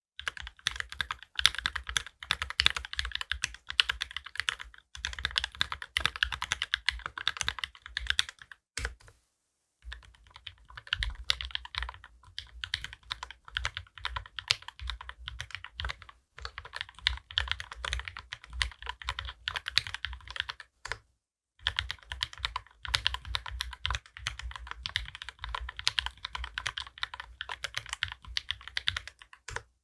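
Custom mechanical keyboard typed on rapidly: lubed linear switches with Gateron Ink Black housings and UHMWPE stems on a brass plate, under GMK keycaps. The clicks come in long, dense runs with two brief pauses.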